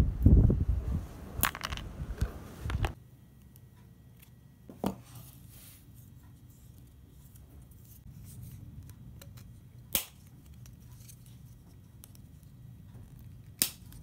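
Side cutters snipping through steel paper-clip wire: a few sharp single snips, about a second and a half in, about ten seconds in and just before the end, with quieter handling of the popsicle sticks and tool between them. The first three seconds carry heavy low rustling of hands close to the microphone.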